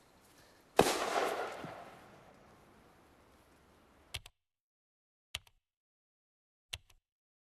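A bomb blast goes off suddenly about a second in and rumbles away over a second or two. Three short sharp clicks follow, spaced about a second and a quarter apart, with dead silence between them.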